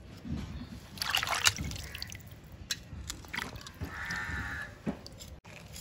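Wet handling of small sardines being cleaned and cut: water splashing and dripping, with a few small clicks. A short high call is heard about four seconds in.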